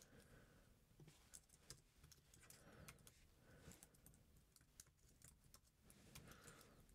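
Faint typing on a computer keyboard: scattered, irregular quiet key clicks.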